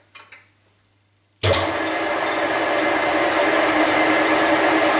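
A couple of light clicks, then about a second and a half in a Deckel FP1 milling machine is switched on and its motor runs with a steady whirring hum, starting up for the first test of a new coolant system.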